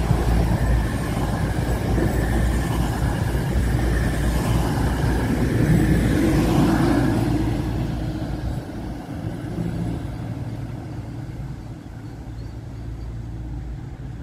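East Midlands Railway Class 222 Meridian diesel multiple unit passing close by, its underfloor diesel engines and wheels on the rails making a loud rumble. The sound swells as the last car goes by about seven seconds in, then fades as the train moves away.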